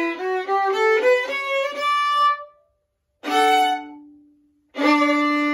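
Solo violin, bowed: a run of quick notes, then after a short break two separate held notes, the last one sustained.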